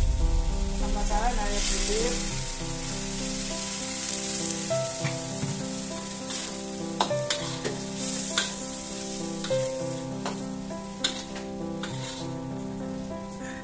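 Vegetables and sausage sizzling in a hot wok while a metal spatula stirs and scrapes them, with sharp clinks of the spatula against the pan. The sizzle is loudest in the first two seconds.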